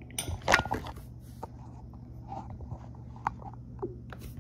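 Handling noise from a phone being picked up and stood upright: a cluster of knocks and rubbing about half a second in, then a few light taps and clicks.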